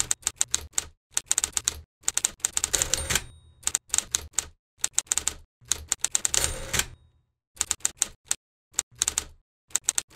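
Manual typewriter typing: quick runs of sharp key strikes in bursts with short pauses between them, and a longer, denser rattle at the end of each line as the carriage is returned.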